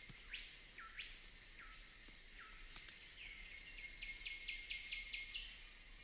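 Faint rainforest ambience: a bird gives a quick falling whistle four times, about one every three-quarters of a second, then a faster run of similar falling notes over a thin steady high tone.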